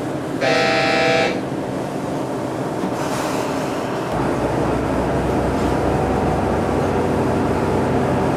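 Inside a KiHa 110 series diesel railcar: running noise of the train, with a short horn blast about half a second in. About four seconds in, the diesel engine's low rumble grows heavier.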